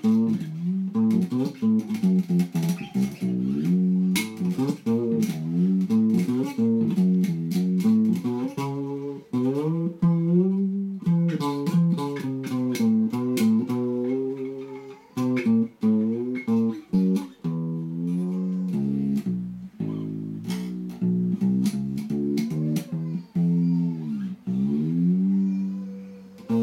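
Homemade fretless electric bass with a frying-pan body, a chromed metal rod for a neck and a P-bass pickup, strung A and D, played as a continuous line of plucked low notes. Many notes slide up and down in pitch, as a fretless neck allows, and the plucks click sharply at their attacks.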